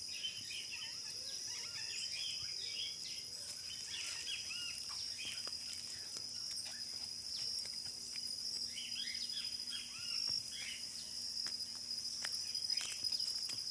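A flock of parrots, taken for maritacas, calling continuously: many short, harsh, rising-and-falling screeches overlapping, over a steady high-pitched insect drone.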